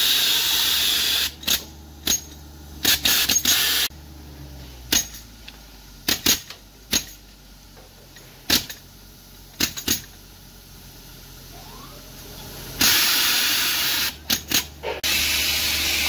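Compressed air hissing out of a hose-fed air gun in blasts: a long blast at the start, short on-off bursts through the middle, and longer blasts again from about three seconds before the end. A steady low drone of the air compressor's engine runs underneath.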